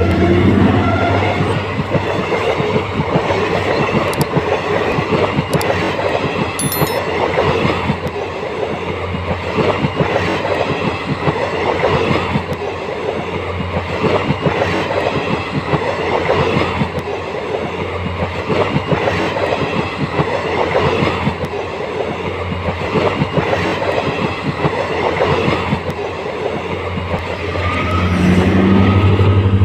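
Passenger train passing close by at speed, its wheels clattering rapidly over the rails, with a steady low hum underneath.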